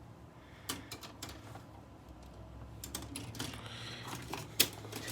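Plastic model kit parts and their plastic bags being handled: scattered light clicks and rustling, with one sharper click about four and a half seconds in.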